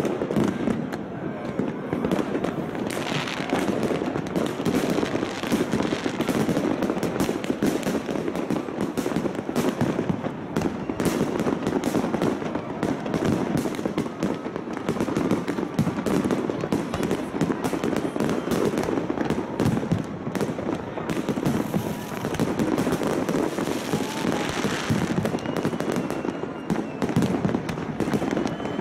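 Fireworks display: aerial shells bursting in a dense, continuous run of bangs and crackles, with people's voices underneath.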